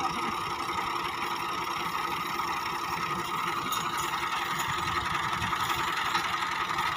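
Millat Massey Ferguson 260 tractor's three-cylinder diesel engine idling steadily, with no revving.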